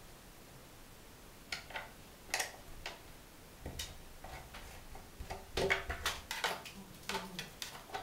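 Irregular clicks, scrapes and rustles of fingers and a small tool scrubbing packed dust off the plastic squirrel-cage blades and housing of a 14 cm National bathroom ventilation fan. They start about a second and a half in and are busiest a little past the middle.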